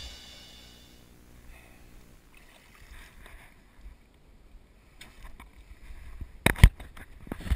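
A song with drums fades out over the first second, leaving faint handling noise aboard a small fishing boat. Several sharp knocks come near the end, from gear or hands bumping the boat.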